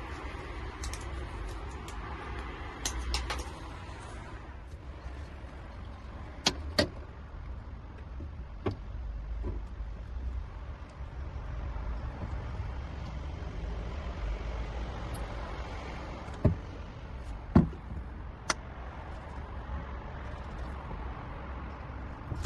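Steady low rumble with a few scattered sharp knocks and clicks, the loudest about two-thirds of the way through.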